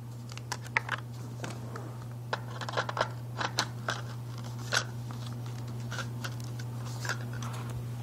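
Irregular plastic clicks, knocks and scraping as the hose and hand tool of a Hoover carpet cleaner are handled and clipped on, over a steady low hum.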